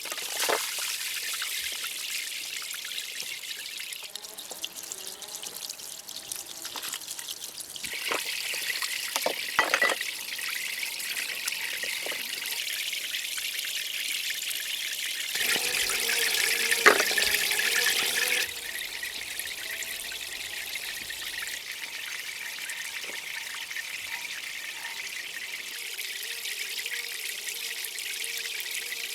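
Water trickling and running steadily, growing louder for a few seconds twice along the way, with a few light knocks and clicks.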